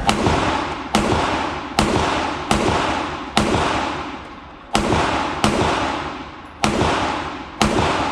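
Nine 9mm shots from a Glock 43X pistol with a ported barrel, firing 124 grain rounds at about one a second, with a slightly longer pause near the middle. Each shot has a reverberant tail.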